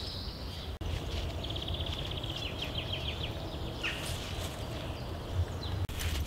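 A woodland songbird sings a fast, high trill lasting about two seconds, then a few slurred notes and a short falling note, over a steady low background rumble.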